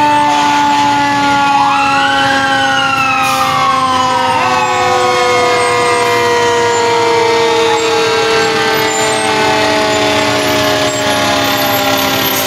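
Parading fire engines sounding their warning devices: a siren wails up and then down over a few seconds early on, over long held tones that sink slowly in pitch throughout.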